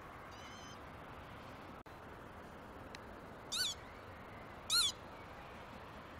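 Two short, high, squeaky animal calls about a second apart, each bending quickly in pitch, with a fainter, wavering call near the start.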